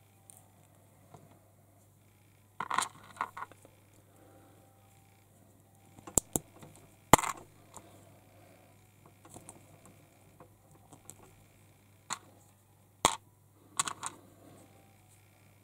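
Small plastic toy-figure parts being handled and clicked together: a handful of sharp clicks and short rattling clatters, spaced a few seconds apart.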